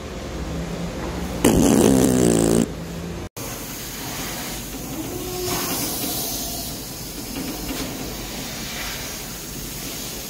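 Compressed air escaping between a lubed truck tire bead and its rim while the tire is being inflated. About a second and a half in it lets out a loud fluttering burp, and after that it hisses steadily with small swells: the bead is not sealing.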